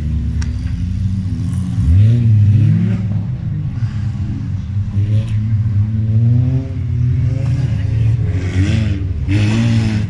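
Engines of old wreck-race cars revving hard on a dirt track, the pitch sweeping up about two seconds in and then rising and falling as they accelerate and shift. Two short rushes of noise come near the end.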